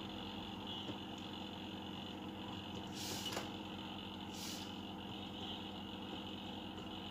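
Steady low background hum with faint steady tones, and two short hissy rustles about three and four and a half seconds in.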